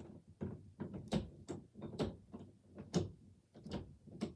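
A wooden door and its metal hardware being handled during re-hanging: a string of irregular knocks and clicks, about two or three a second.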